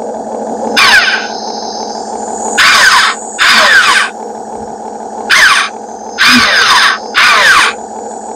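Excavator machinery running with a steady whine, broken by six short, loud, rasping bursts spaced a second or so apart.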